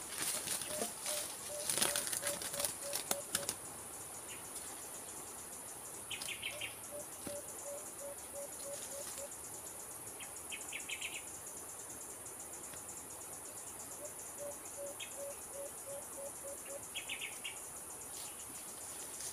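A bird caught in a hanging wire trap flapping and rustling against it for the first few seconds. A dove calls three times, each a run of about ten low, evenly spaced hoots, with a few short high chirps between.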